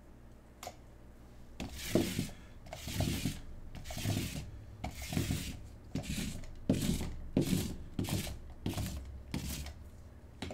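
Trading cards being slid and flipped one after another by hand: about a dozen short papery swishes, roughly one every two-thirds of a second.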